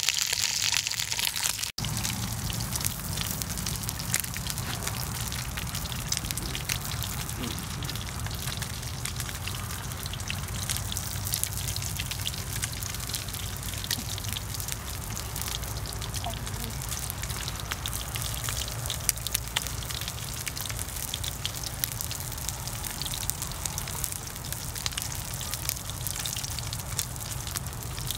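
Fish sizzling in a pan over a wood fire: a steady crackling hiss full of small pops. It is brighter for the first couple of seconds, then breaks off suddenly and goes on lower and even.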